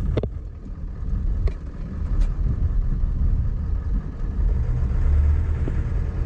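A 1995 Ford F350's 7.3-litre Powerstroke turbo-diesel V8 running as the truck drives, heard from inside the cab as a steady low drone with road noise. A few faint clicks come in the first two seconds.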